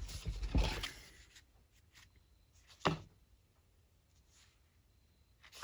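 Pen scratching on paper with small handling noises during the first second and a half, then a single sharp tap about three seconds in, followed by quiet.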